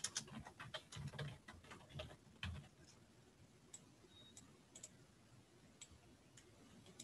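Faint typing on a computer keyboard: a quick run of keystrokes in the first few seconds, then a few scattered clicks.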